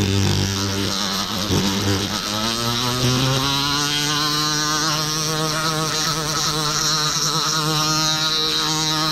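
Rotary tool spinning a slotted mandrel with sandpaper, polishing the exhaust port of a two-stroke chainsaw cylinder. The motor's hum rises in pitch about two seconds in as it speeds up, then holds steady at high speed over the hiss of paper on metal.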